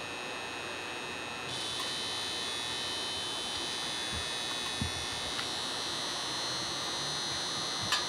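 A steady high-pitched electrical hum or buzz that gets louder about a second and a half in, with a few faint clicks and a soft thump near the middle.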